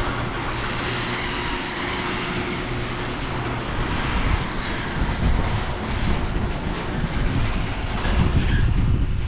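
Craftsman garage door opener running, moving the garage door along its tracks: a continuous mechanical rumble and rattle over a steady motor hum, growing louder near the end.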